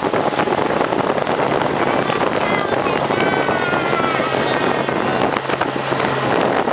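Speedboat under way: the motor's steady low drone under a loud rush of wind and water. A few high gliding tones ride over it from about two to four and a half seconds in.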